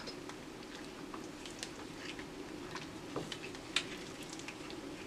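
Wooden spoon stirring a thick cream-and-mushroom sauce in a metal pan: soft wet squishing and scattered small clicks, over a faint steady hum.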